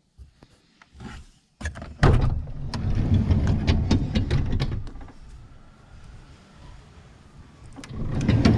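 Renault Kangoo sliding door being run along its rail: a few clicks, then a slightly grinding, rumbling run for about three seconds, and a second run near the end. The grinding is the abnormal noise the door has newly developed, with nothing visibly caught in the rail.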